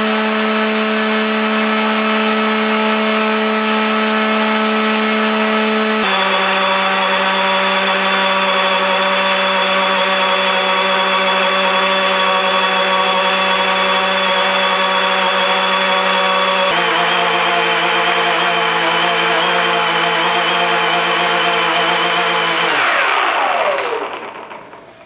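Small FPV plane's brushless electric motor and propeller running at a steady cruise throttle, a constant whine that steps lower in pitch twice as the Li-ion pack runs down toward 10.3 volts, where the motor starts to sputter. Near the end the whine slides quickly down in pitch and stops.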